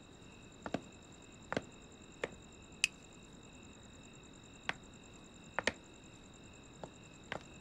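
Quiet night ambience with a steady, high cricket chirring, broken by about eight short, sharp clicks and knocks, spread unevenly over the stretch: footsteps on a tiled floor and a wooden door being opened as two people come into the room.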